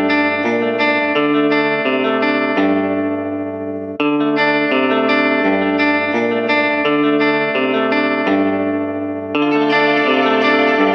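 Outro music: a guitar with effects playing a repeating pattern of sustained chords, the chords changing every half second or so and new phrases struck about four and nine seconds in.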